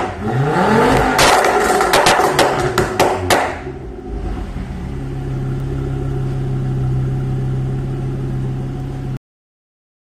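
Ford Focus RS turbocharged five-cylinder engine revved in short blips, its exhaust crackling and banging with several sharp pops as the revs fall on the overrun. About three and a half seconds in it settles to a steady idle, and the sound cuts off abruptly near the end.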